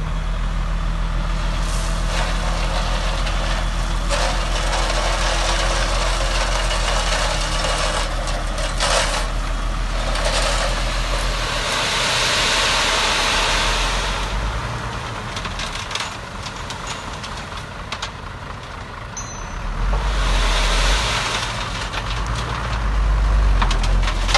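Heavy diesel earthmoving machinery running steadily, with a low engine drone throughout. Stretches of rushing, scraping noise come in around the middle and again near the end, as the engine works harder.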